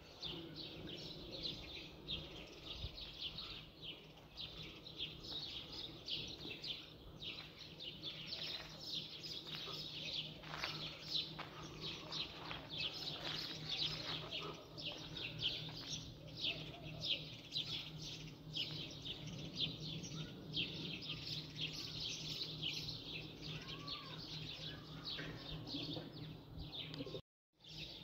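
Small birds chirping busily, a dense run of short, high chirps throughout, over a low steady hum.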